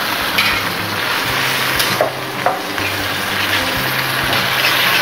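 Sliced tomatoes sizzling in hot oil in a karahi as they go in and are stirred, with a metal slotted spatula scraping and knocking against the pan a few times.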